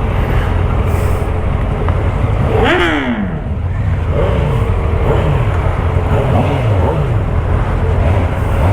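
Honda CBR650R's inline-four engine under way, the revs rising and falling several times as the rider accelerates and changes gear, over steady wind noise.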